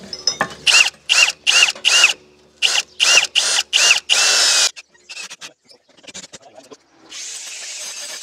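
A handheld power tool run in about eight short, loud bursts with a whine, the last one longer, then a steady rushing noise from about seven seconds in.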